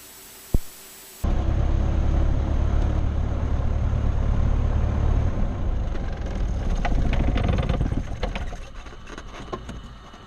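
Cessna 172R's four-cylinder Lycoming engine running at idle with a low rumble, then dying away as it is shut down, followed by a few light clicks.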